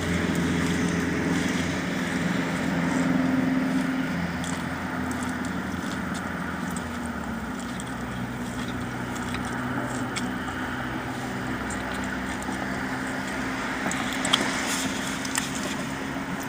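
Steady hum of a vehicle's engine running, with low tones that shift slightly, and a few light clicks near the end.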